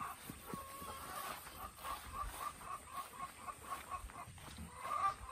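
Chickens clucking: a run of short, evenly repeated clucks, about four a second, growing louder near the end.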